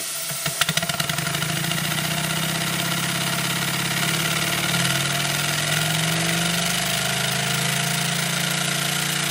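Working 2-inch scale Burrell traction engine model running on steam, its hand lever being worked. About half a second in, a few sharp exhaust beats quicken into a fast, steady run, its speed wavering a little.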